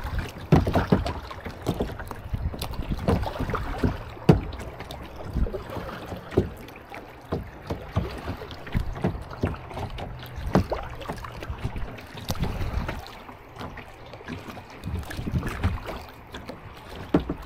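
Kayak paddling in a shallow river: paddle strokes splashing, with irregular knocks against the kayak.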